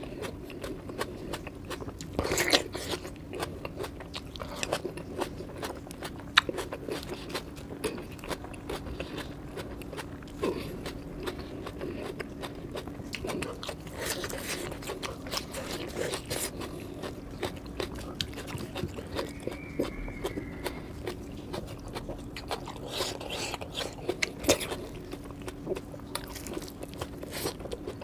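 Close-miked chewing and crunching: a person eating fried chicken lollipops and rice by hand, with many small wet mouth clicks and a few louder crunchy bites. A steady low hum runs underneath.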